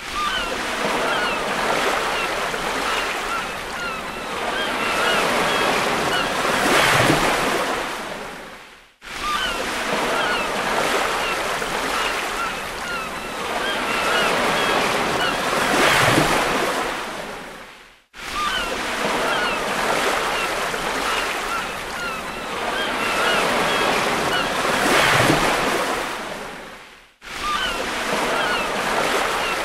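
Ocean surf: a recording of waves, about nine seconds long, looped three times. Each pass swells to a breaking-wave crash and then fades out before starting again, with faint high chirps over it.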